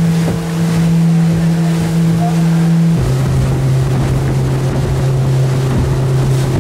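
Motorboat engine running at a steady pitch under way, with water and wind noise over the hull; about three seconds in the hum drops suddenly to a lower, steady pitch.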